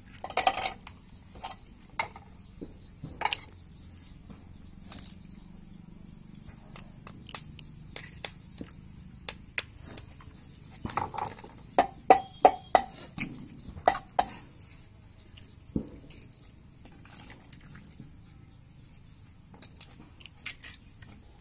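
Eggshells tapped and cracked against an aluminium idli plate, with eggs dropping into its cups: a string of sharp clicks and light metal taps, thickest and loudest about eleven to fifteen seconds in.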